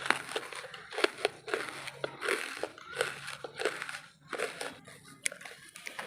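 Close-miked crunching and chewing of pieces of wood charcoal: a run of irregular, sharp crunches, a few a second.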